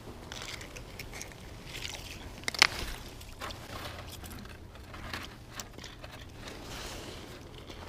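Scattered crunching and scraping as the angler shifts on snowy ice and handles his gear, with one sharp click about two and a half seconds in.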